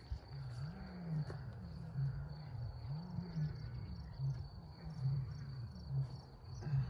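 Crickets chirping in a steady high trill, with a low wavering sound that swells and fades about once a second underneath.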